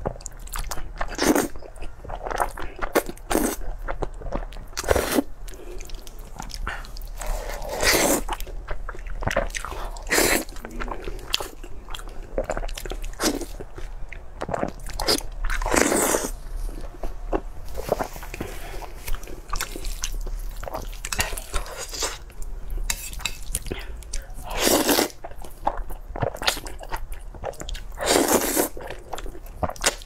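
Close-miked eating sounds: spicy noodles slurped up in long pulls several times, between wet chewing and biting into braised meat.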